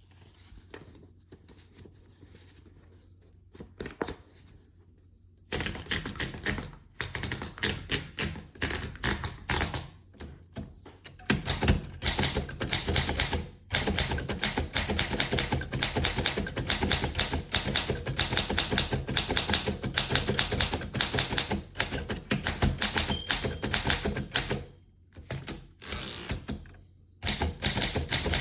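Typing on a Remington Portable No. 3 manual typewriter: fast runs of sharp key strikes with short pauses between them. They begin about five seconds in, after a few quiet seconds with a couple of lone clicks.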